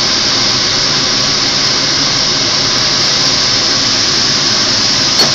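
Portobello mushroom caps sizzling in oil on a flat-top griddle: a steady hiss over a low hum, with a brief knock near the end.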